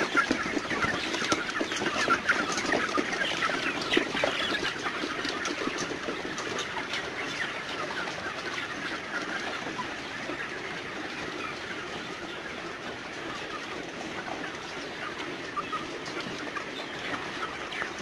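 Dense chatter of a large flock of broiler parent-stock chickens clucking and calling as they crowd the feeders at feeding time. Loudest over the first few seconds, then steadier and a little fainter.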